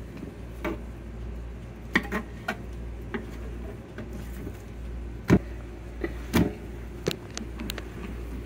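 Knife and mackerel fillets being handled on a cutting board: scattered light knocks and taps, the loudest about five seconds in, over a steady low hum.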